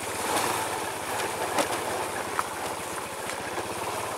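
Small motorcycle engine running at low speed along a rough dirt track, a steady rapid putter with a few sharp knocks over the bumps.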